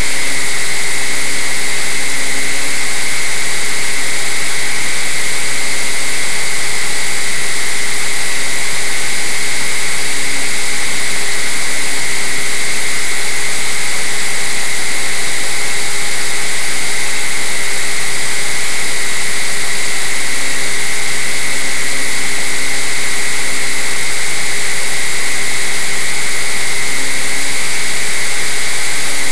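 Motor and propeller of a radio-controlled flying wing running steadily in flight, a constant high whine over a loud rushing hiss of airflow on the onboard camera's microphone.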